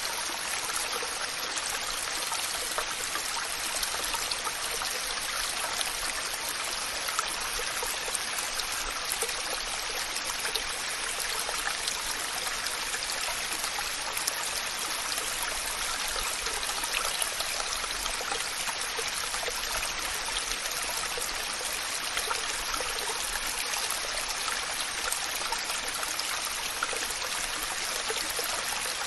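Waterfall and flowing stream water rushing steadily, an even hiss of falling water with fine splashing.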